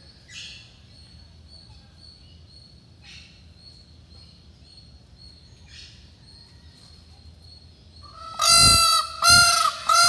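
Indian peafowl calling: loud, pitched honking cries start about eight seconds in and come two or three times in quick succession. Before them only a few faint short rustles are heard.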